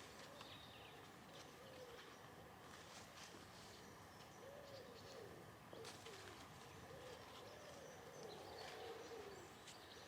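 A pigeon cooing faintly, a run of low, soft, rising-and-falling coos repeated over several seconds.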